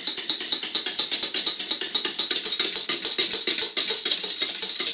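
Wire balloon whisk beaten fast through thick custard in a stainless-steel saucepan, its wires clicking and scraping against the pan in a quick, even rhythm.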